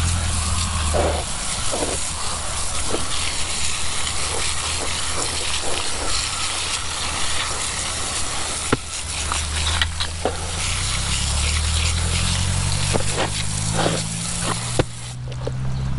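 A steady spraying hiss, with a low motor hum underneath that rises in pitch in the second half and a few faint knocks.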